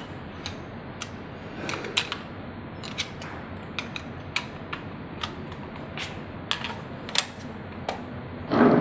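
Irregular sharp plastic clicks and taps as 18650 batteries are fitted into a wireless doorbell's battery compartment and the housing is handled, with a louder handling noise near the end.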